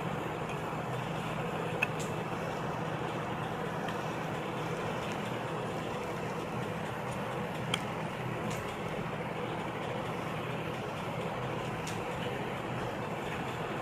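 Steady background noise: an even rumble and hiss with a faint low hum. Small sharp clicks come about 2, 8 and 12 seconds in, typical of light handling of tools and parts on a work surface.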